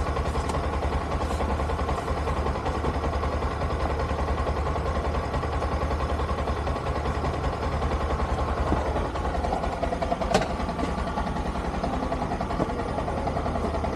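Motorcycle engine idling steadily, with a single sharp click about ten seconds in.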